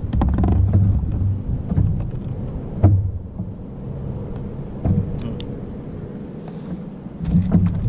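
Wind buffeting the camera microphone, giving a loud, uneven low rumble, with a few sharp knocks, the loudest about three seconds in.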